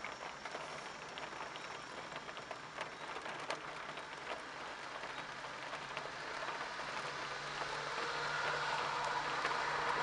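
Rain hissing steadily, with scattered drop ticks, while a taxiing Boeing 777's jet engines hum underneath. The engine sound swells and grows louder over the last few seconds.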